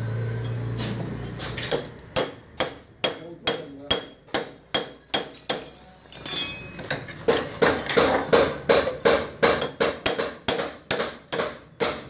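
Repeated metal-on-metal hammer strikes, about two to three a second, growing louder and quicker about halfway through, on a flywheel puller fitted into a Honda CBZ Xtreme's alternator rotor to free it from the crankshaft.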